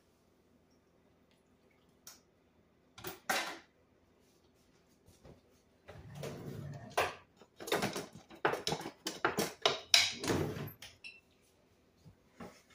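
Kitchen handling noises: a couple of clicks a few seconds in, then a busy run of knocks, clinks and scrapes from dishes and utensils being handled, from about six to eleven seconds in.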